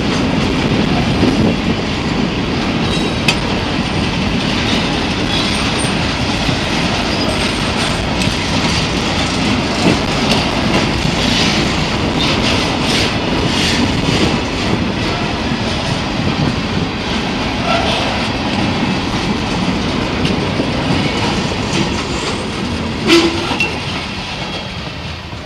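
Covered hopper cars of a freight train rolling past close by: a steady rumble of steel wheels on rail with scattered clicks and clanks. There is one sharp bang about 23 seconds in, and the rumble fades near the end as the last car goes by.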